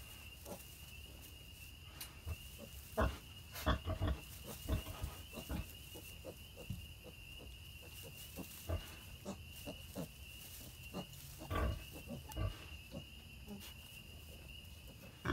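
A sow and her newborn piglets grunting now and then, in short, scattered grunts, with straw rustling as a piglet moves through the bedding. A steady faint high whine runs underneath.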